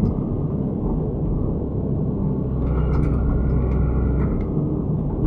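Excavator's diesel engine running steadily, with a faint higher whine that swells and fades about halfway through.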